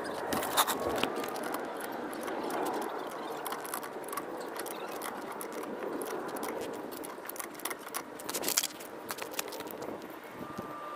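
Metal clinks and rattles of a wrench and socket working a car wheel's lug bolts by hand, with a quick cluster of clinks about eight and a half seconds in, over a steady background hum.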